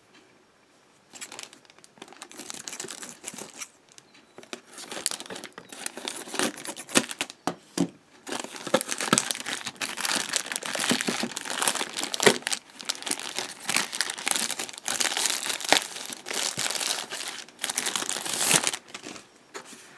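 Clear plastic wrapping crinkling and crackling as hands pull it off a small cardboard box. It starts about a second in, comes in uneven handling bursts with sharp crackles and short pauses, and stops shortly before the end.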